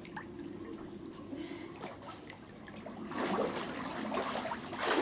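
Pool water lapping and sloshing around a swimmer, turning into louder splashing about three seconds in as she stands up and wades through waist-deep water.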